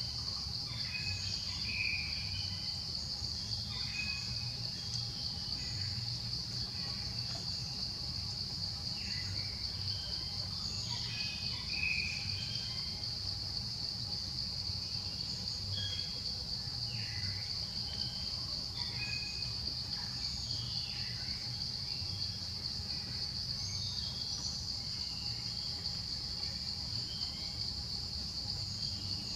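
Steady high-pitched drone of insects, unbroken throughout, with scattered short chirps over it and a low steady rumble underneath.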